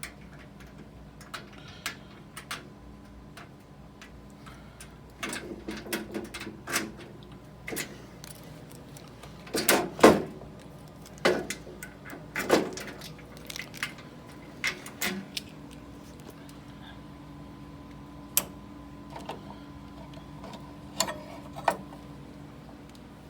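Irregular clicks, knocks and rattles of things being handled, loudest about ten and twelve seconds in, over a faint steady electrical hum.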